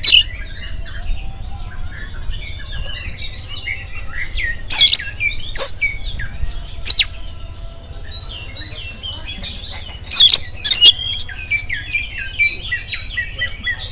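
Oriental magpie-robin singing: a run of soft, quick warbled notes, broken by loud, sharp whistled notes about five seconds in and by a louder cluster of them near ten seconds.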